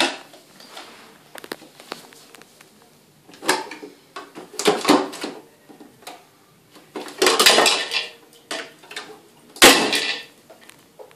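Plastic parts of a PetMate Fresh Flow cat water fountain rattling and clattering in several bursts as a cat works at pulling it apart.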